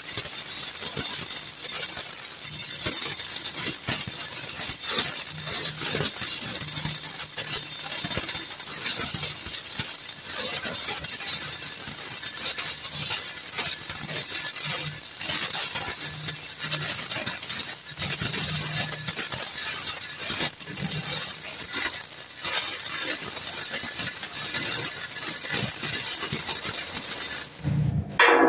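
Self-shielded flux-cored welding arc (Lincoln NR-305 5/64-inch wire) crackling and spattering steadily while running a full-penetration weld. The arc cuts off suddenly near the end.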